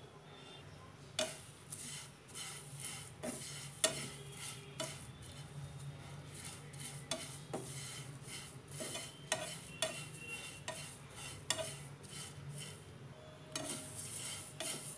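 Plastic slotted spatula stirring flattened rice (poha) flakes in a nonstick pan, the dry flakes rustling and scraping against the pan in irregular strokes about once a second, as the flakes are roasted until crisp.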